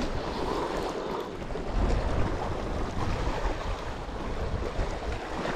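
Sea waves washing against a rocky shore, with wind buffeting the microphone. The wind rumble is heavier about two seconds in.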